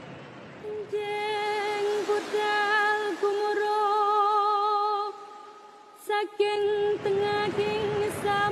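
Soundtrack music led by a woman's voice singing long, held notes with vibrato. It enters about a second in over a soft rushing noise, breaks off briefly about three-quarters through, then resumes.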